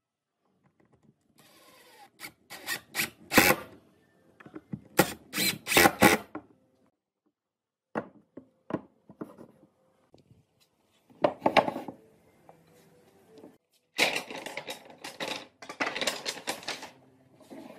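Pine boards and strips being handled and set down on a wooden workbench: sharp wooden knocks and clatters in separate bursts, the longest clatter near the end as loose strips are shuffled into place.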